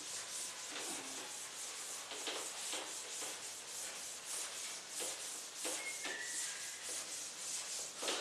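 Quick scratchy rubbing strokes on a writing surface, about two or three a second, kept up without a break, with a faint short squeak about six seconds in.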